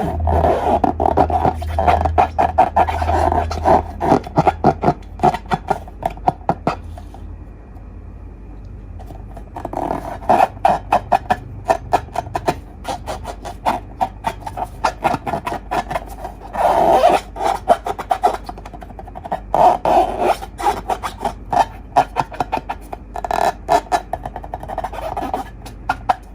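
Slime being squeezed and kneaded by hand: quick wet clicks and pops of trapped air, coming in bursts with short pauses between them.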